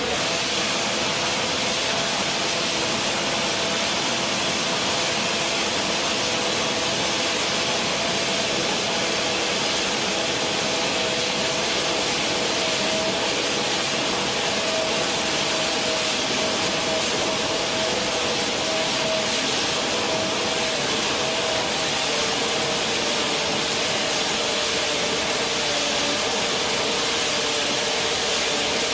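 A large machine running steadily: an even, loud hiss with a constant hum and a couple of held tones, unchanging throughout.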